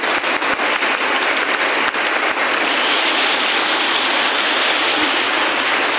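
Heavy rain falling and pouring off a roof edge: a dense, steady hiss with many sharp little drop splatters scattered through it.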